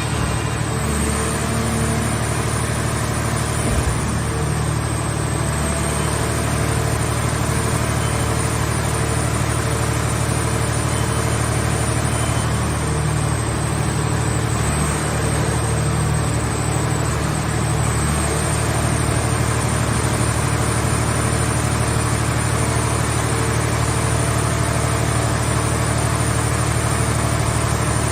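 Scrap-car baler's power unit running steadily, a constant engine-like drone with a faint high whine that wavers slightly in pitch.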